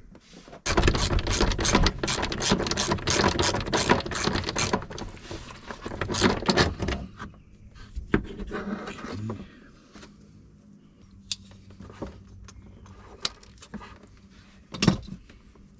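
Ratchet wrench clicking quickly and evenly, about six clicks a second, for several seconds, as a part is unbolted from the golf cart's engine. Then come softer, scattered clicks and one sharp knock near the end.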